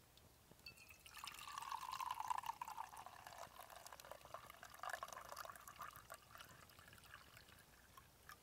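Hot tea poured in a thin stream from a pot into an enamel mug, a trickling splash that starts about a second in and keeps going, fainter in the last seconds.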